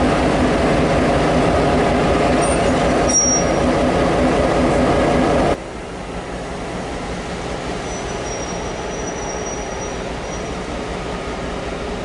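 Diesel-electric locomotive 42103's EMD two-stroke V16 engine running close by, a steady, loud engine note. About five and a half seconds in the sound cuts to a quieter, more distant version of the same running locomotive at the platform, with a faint thin high whine for a couple of seconds.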